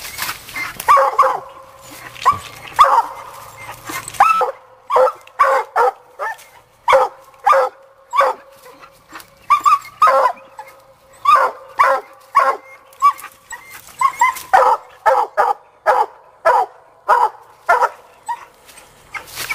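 Black and Tan coonhound barking at a raccoon it is hunting: a long run of short, sharp barks, a few spaced out at first, then coming one to two a second after about four seconds.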